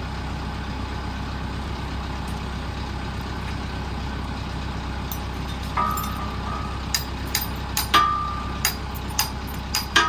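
Tractor engine idling steadily. From about six seconds in, a string of sharp metal clinks and clanks, some ringing briefly, as a steel lifting chain is handled and hooked around a log.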